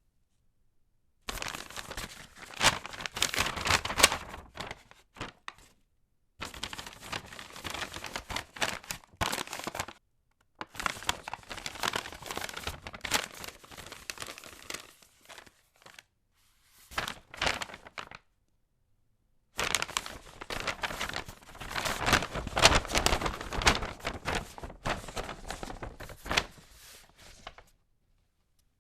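Paper bag being crumpled and crinkled in several separate bouts of a few seconds each, with sharp crackles and short silences between bouts.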